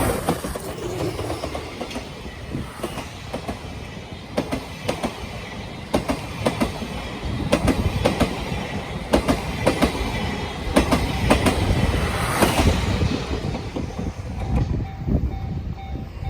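A train of steam locomotive C57 180 and 12-series passenger coaches rolling past over the rails. The wheels click over the rail joints in quick pairs over a steady rumble, and the clatter fades near the end. Near the end a level-crossing warning bell can be heard ringing in a steady beat.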